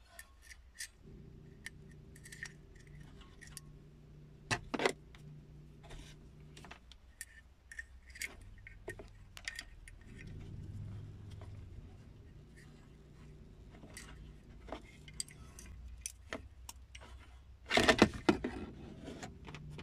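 Metal multimeter test probes clicking and scraping against the contacts and metal shell of a car cigarette lighter socket, with a louder clatter about 18 seconds in when the probes short the socket's positive and negative, blowing its 15-amp fuse.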